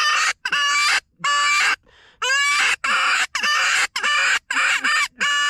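Rabbit distress predator call: a run of loud, raspy squealing cries, each sliding up in pitch at its start, about two a second with a short pause about two seconds in, imitating a rabbit in distress to lure coyotes.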